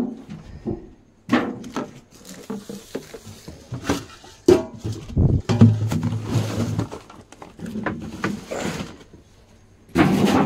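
Clattering knocks and scrapes of tins, boxes and other household clutter being pulled aside and shifted by hand, in a run of uneven bangs.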